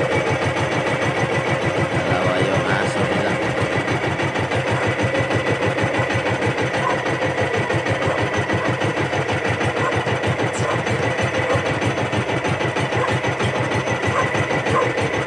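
Boat engine idling with a rapid, even beat and a steady high tone above it.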